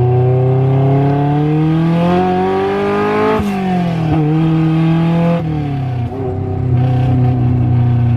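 Manual-transmission car engine pulling with revs climbing steadily, then dropping sharply a little over three seconds in as a gear is changed up; the revs hold, fall again about five and a half seconds in, then settle into steady running.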